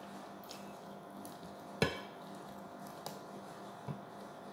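Tableware knocking: one sharp clink of a dish about two seconds in, then two lighter taps, over a steady background hum.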